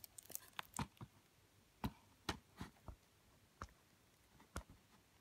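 Faint, scattered light clicks and taps of Blu-ray cases being handled and set upright on a surface, about ten over a few seconds.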